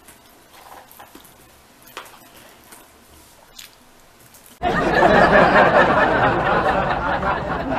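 Faint crunches of dried pineapple being chewed. About four and a half seconds in, a loud, dense edited-in sound effect cuts in suddenly and carries on.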